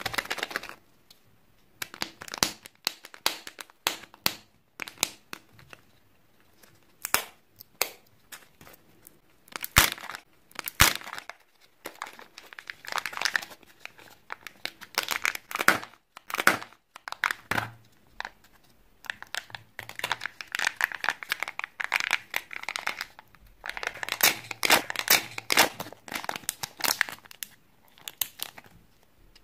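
Kinder Joy eggs being unwrapped by hand: irregular crinkling and tearing of the foil wrapping and of the foil seal peeled off the chocolate half, mixed with sharp clicks of the plastic egg halves being handled. The two sharpest clicks come about ten seconds in.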